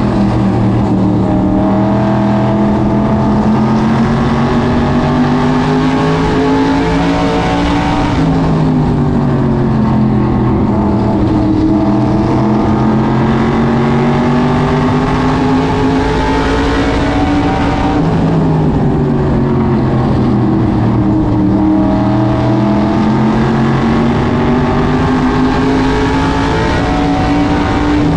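SK Modified race car's V8 engine at racing speed, heard from inside the cockpit. The pitch climbs on each straight and falls sharply as the driver lifts into each turn, about every ten seconds, three times in all.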